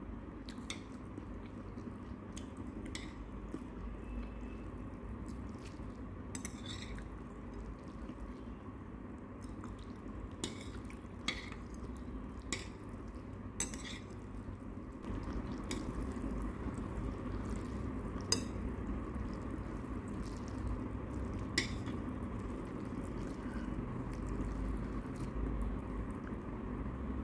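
Metal chopsticks clinking now and then against a ceramic bowl as noodles and greens are stirred and lifted out of broth, a dozen or so sharp separate clicks. Under them runs a steady low background hum that gets a little louder about halfway through.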